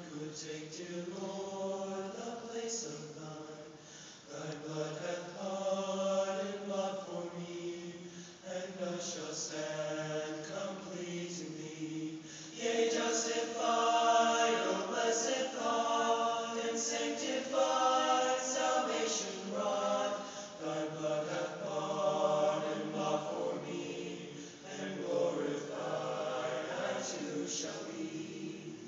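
Male vocal ensemble singing a hymn in several-part harmony, in held phrases with short breaths between them. It swells louder a little under halfway through.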